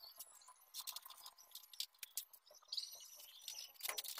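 Faint scattered clicks and taps from hands working on a PVC-pipe frame, with a few high chirping sounds about three seconds in.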